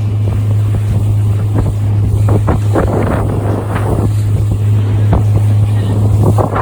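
Small fishing boat's motor running steadily under way, a deep constant drone, with wind buffeting the microphone and irregular short bursts of noise from wind and water.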